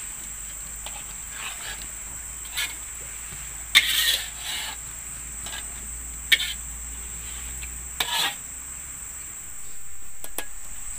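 Steady high-pitched drone of insects, crickets or cicadas, with a handful of sharp knocks and clatters scattered through it, the longest about four seconds in.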